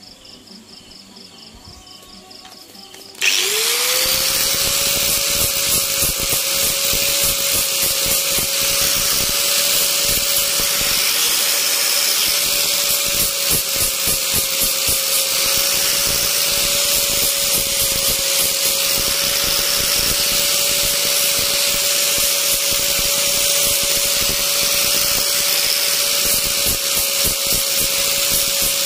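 A handheld electric rotary power tool switches on about three seconds in, its whine rising quickly to a steady pitch, and runs without a break while it works the wood of a keris hilt. Faint crickets chirp before it starts.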